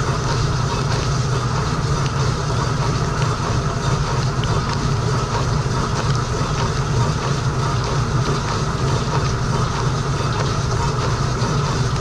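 Frigidaire Gallery dishwasher in its wash cycle, heard from inside the tub: water jets from the spray arms spattering on the racks and walls over a steady low hum from the wash pump.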